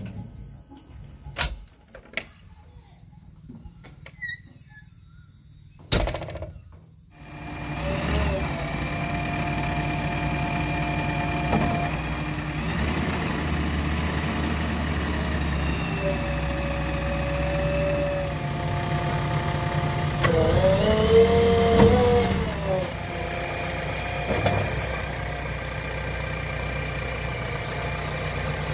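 JCB 3DX backhoe loader's diesel engine starting about seven seconds in and then running steadily at idle, with a brief rise and fall in pitch about two-thirds of the way through. Before the start there are a few clicks and one sharp knock from the cab.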